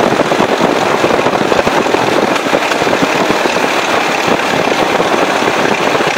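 Ford Model T Speedster's engine running steadily at an easy cruising speed, almost like idling, heard from the open cockpit on the move.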